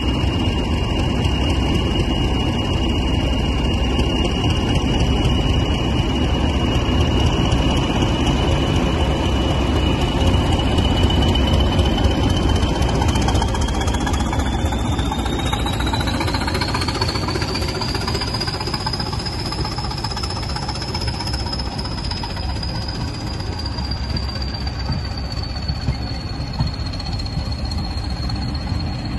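Diesel locomotive engine running with a heavy, steady rumble and a thin high whine over it. The whine climbs in pitch a little before halfway, then settles slightly lower.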